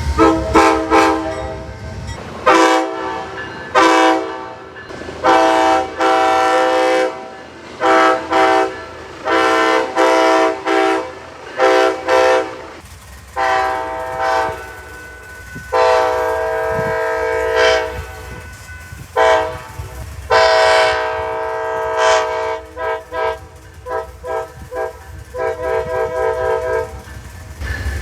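Amtrak locomotive air horn blowing a long series of blasts, each a chord of several tones, some short and some held for a second or more, with a run of quick short toots near the end. A low rumble of the passing train runs beneath.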